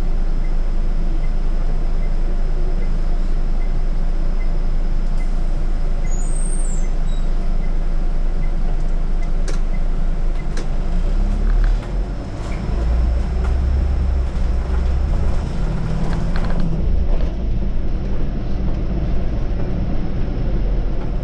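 Scania bus under way, its diesel engine and road noise running steadily, with a few light clicks. About halfway through there is a brief dip, then the engine's low note grows stronger for a few seconds.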